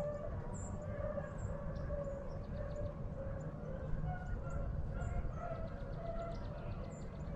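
Beagles baying, faint: a string of drawn-out, pitched yelps repeating through the whole stretch, the sound of hounds running a rabbit. Small birds chirp high above it, over a steady low rumble of wind noise.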